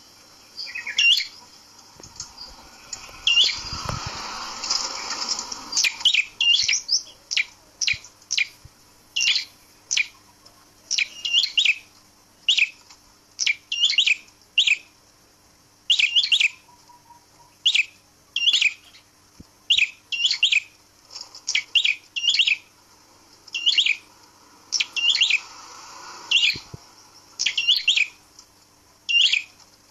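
A prenjak (prinia) calling over and over: loud, short, sharp high chirps about once a second. A burst of rustling noise comes a few seconds in.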